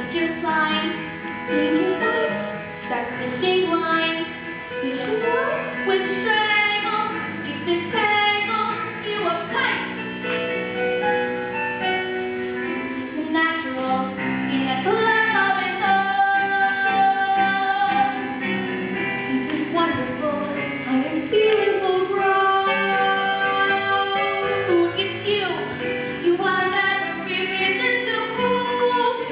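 Young female voices singing a musical-theatre song over instrumental accompaniment.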